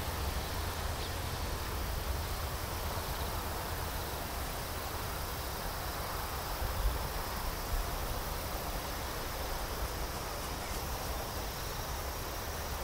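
Steady outdoor ambience: insects chirring over a low, even rumble.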